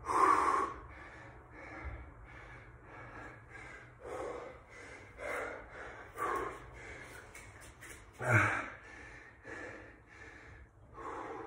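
A man breathing hard after a high-intensity exercise interval, with heavy puffing exhales about one a second; the loudest come near the start and about eight seconds in.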